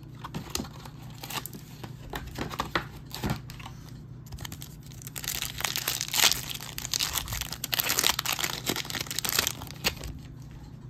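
A few light clicks and taps in the first seconds, then about five seconds of dense crinkling and tearing as the foil wrapper of a Donruss Optic football card pack is ripped open by hand.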